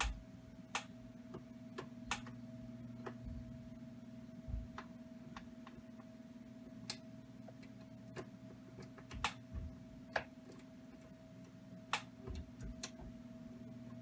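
Faint, irregular metallic clicks and ticks of a Z-bar lock pick working the wafers of a toolbox wafer lock under clockwise tension, over a steady low hum.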